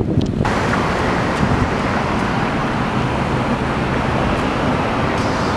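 Steady city street traffic noise, a dense even rush that cuts in abruptly about half a second in, with a faint low engine hum in the middle.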